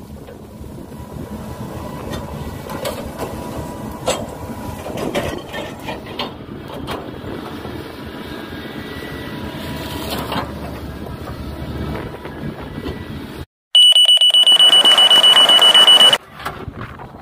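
Hitachi hydraulic excavator's diesel engine running steadily, with a few sharp clanks. About 13.5 seconds in, the sound cuts out and a loud, high, rapidly pulsing electronic alarm beep rings for about two and a half seconds, louder than anything else.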